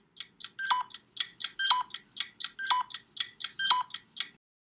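Electronic ticking jingle: a bright beep about once a second, with lighter ticks in between. It stops just over four seconds in.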